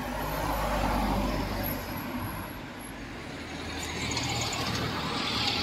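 Road traffic: motor vehicles passing, one swelling and fading in the first couple of seconds and another rising near the end.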